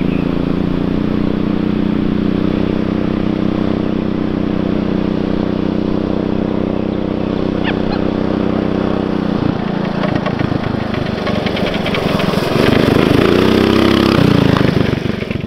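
Tandem mini bike's single-cylinder engine running at a steady pitch while riding, then, after a cut about nine and a half seconds in, its note rising and falling as the throttle is worked.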